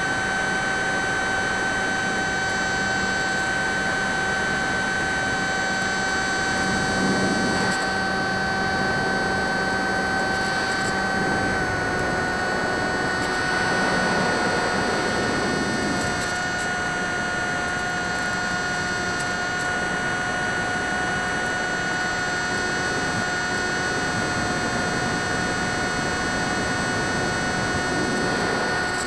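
Electric motor and propeller of a Drifter ultralight RC model plane running steadily in cruise flight, heard from the plane's own camera as a steady whine over wind rush. The pitch drops slightly about twelve seconds in as the throttle eases a little.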